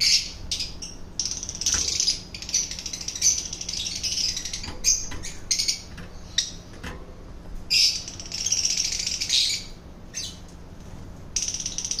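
Lovebirds chattering in rapid, shrill bursts, some short and some over a second long, in stops and starts.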